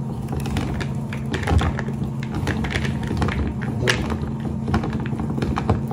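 Hand-cranked rotary drum grater shredding a block of pepper jack cheese: an irregular run of clicks and scraping as the crank turns, over a steady low hum.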